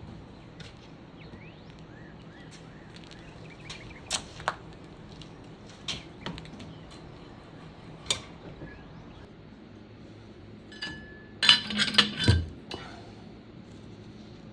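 Hand tools and metal engine parts clinking and clanking during engine-bay teardown: a few scattered sharp clinks, then a loud burst of clanks about twelve seconds in, over a low steady hum.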